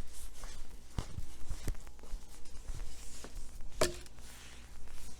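Chunks of ice knocking and clinking as they are shaken out of a bottle: a few scattered knocks, the loudest, about four seconds in, with a short ring.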